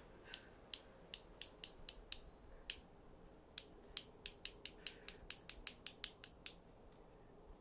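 A paintbrush being tapped to spatter splashes of white paint: a run of light, sharp clicks, roughly three a second, with a short pause a little under halfway and stopping near the end.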